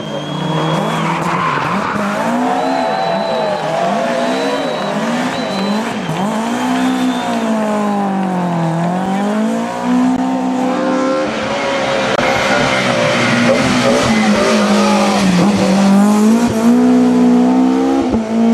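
BMW E30 M3 Group A race car's four-cylinder engine revving up and down over and over under wheelspin as the car slides sideways, with its tyres squealing through the first several seconds.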